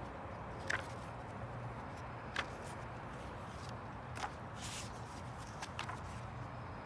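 Handling of a picture book while its pages are turned: several light clicks and a brief paper rustle over a steady low hum.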